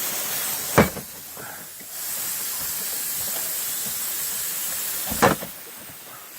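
Two sharp knocks, about a second in and near the end, from parts being handled while the center console is being worked loose, over a steady hiss that drops away briefly after each knock.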